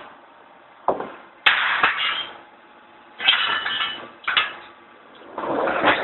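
A series of sharp metal clanks and scrapes, about five, some drawn out for half a second or so, from a steel rod being handled against the frame of a rod-end heating furnace.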